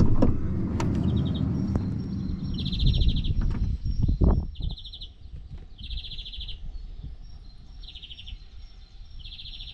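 Short, high, rapidly trilled chirps repeat about every one and a half seconds over a faint steady high whine. A loud low rumble fills the first half and fades out after about five seconds.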